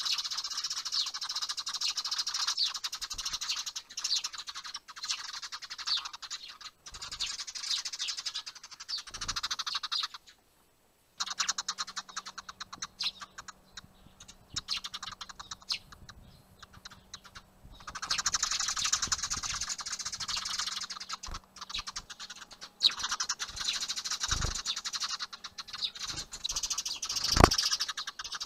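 Eurasian tree sparrows chattering in dense, rapid harsh chirps during a fight over a nest box, in long bursts with a brief break about ten seconds in and a quieter stretch after it. A single sharp knock near the end.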